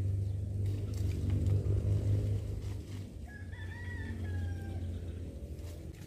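A rooster crows once about three seconds in, a single call that rises, holds and falls away. A loud low rumble runs underneath it.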